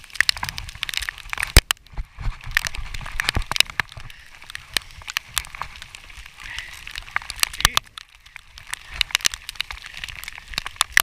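Heavy rain, with drops striking close to the microphone as many irregular sharp ticks and cracks over a steady hiss.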